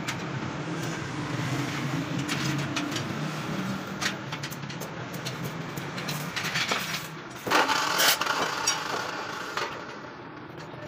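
Steel bars knocking and clinking as rods are fitted into a welded steel grill frame, with a louder clatter of metal about seven and a half seconds in, over a steady low mechanical hum.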